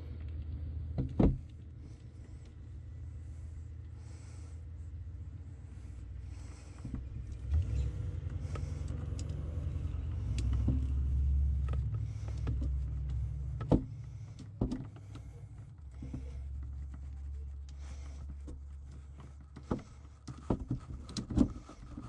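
A low, steady rumble with a few sharp clicks scattered through it, the clicks from a wire stripper cutting and pulling the insulation off the ends of electrical cable wires, several of them close together near the end.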